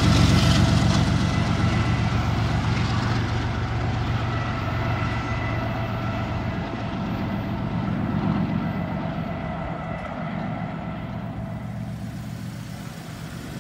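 CSX intermodal freight train rumbling away, its low rumble slowly fading as it recedes, with a thin high tone dying out over the first few seconds.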